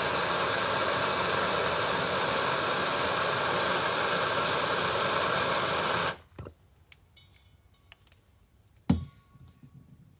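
Pot of water at a rolling boil, a steady loud hiss and rumble, stops suddenly about six seconds in. A single thump follows near the end.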